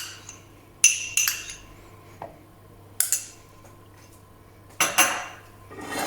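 A metal spoon tapping and clinking against the rim of a container, about four sharp ringing strikes a second or two apart, some in quick pairs, as yogurt is knocked off the spoon.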